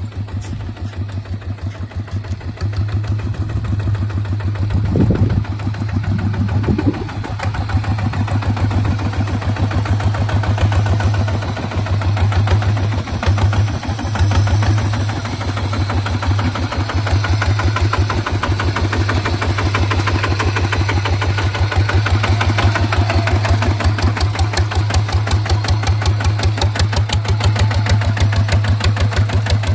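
Small bulldozer's engine running steadily at idle, with an even firing beat throughout. Two short low thumps come about five and seven seconds in.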